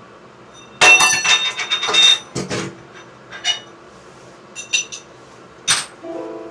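Metal clinking and rattling: a loud, ringing jangle starting about a second in and lasting over a second, like metal tools or faucet hardware handled against each other, followed by scattered single clinks.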